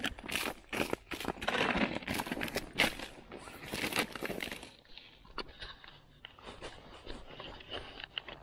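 Rustling and crunching of heavy winter clothing and boots shifting on snow-covered ice, in a quick irregular run of scrapes. About halfway through it settles to a few faint clicks and light handling noises.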